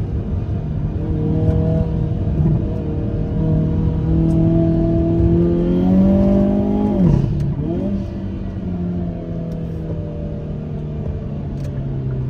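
Hyundai Kona N's turbocharged 2.0-litre four-cylinder accelerating hard, from inside the cabin, over tyre noise. The revs climb for several seconds, drop sharply at an upshift about seven seconds in, pull up again briefly, then settle to a steady cruise.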